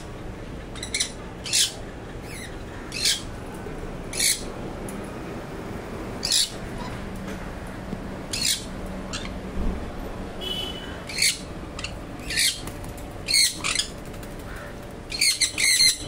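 Pet parrots in a cage of sun conures and cockatiels giving short, loud squawks, one every second or so, with a quick run of several calls near the end.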